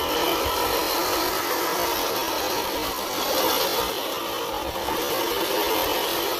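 A 1/10-scale RC crawler's electric motor and gear drivetrain running, a steady whir.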